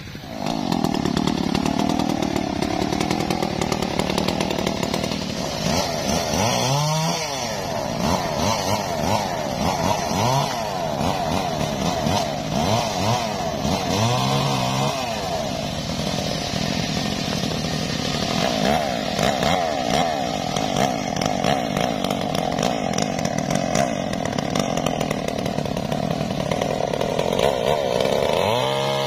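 Stihl MS381 two-stroke chainsaw cutting through a thick durian trunk, running at high revs. Its pitch dips and climbs several times as the chain loads up in the cut.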